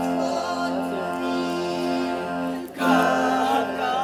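Live music: a voice singing a wavering melody over steady sustained accompaniment notes, with a short break about two and a half seconds in before it carries on.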